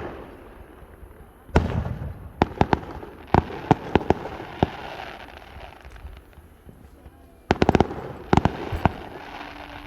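Aerial fireworks shells bursting: a sharp bang about one and a half seconds in, a string of reports over the next few seconds, then a quick crackling cluster of bangs near the end, each with a low rumbling echo.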